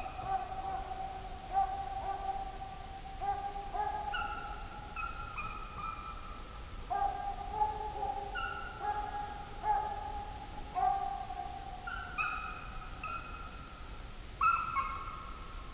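A pack of deer hounds bawling on a running deer's trail, several voices overlapping in long drawn-out bays, one after another.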